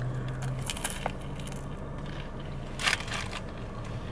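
Biting into and chewing a chalupa with a crisp fried shell, with soft crunches and one louder crunch near the three-second mark, over a low steady hum.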